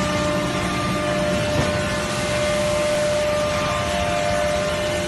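Profile sanding machine running steadily, a constant mechanical drone with a steady hum.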